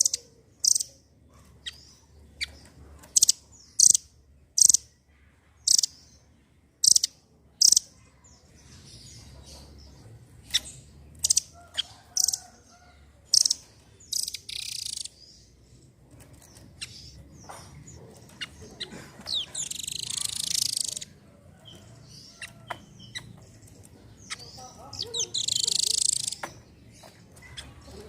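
Nuthatch calling: a run of sharp, high single notes about one a second, then scattered notes and three longer chattering bursts.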